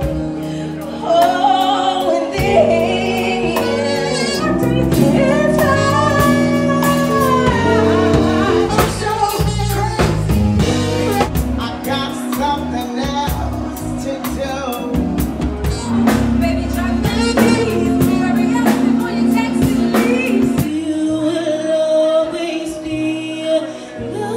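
Live R&B performance: a woman singing into a handheld microphone over a band with keyboards and drums. The music changes abruptly a few seconds before the end.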